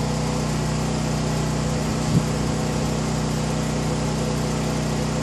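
Champion 7000-watt dual-fuel portable generator running steadily on gasoline under a light electrical load, an even engine hum. There is a brief knock about two seconds in.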